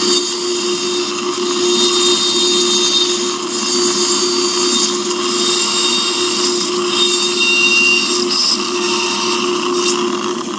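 Surgical dental handpiece running steadily at one pitch as its bur drills bone around an impacted lower third molar, with a surgical suction tip hissing right beside the bur. The drill's tone dips briefly about eight and a half seconds in.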